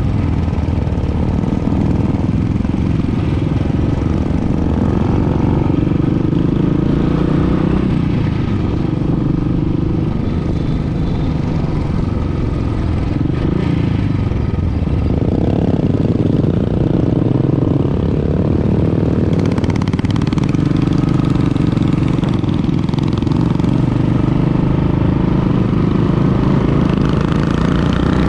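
Motorcycle engine running steadily while riding along a road, the engine note shifting up and down with the throttle around the middle.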